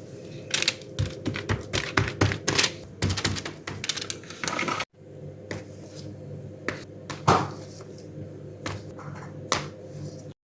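Kitchen handling noises while preparing food: irregular sharp taps and knocks, busiest in the first five seconds, over a steady low hum.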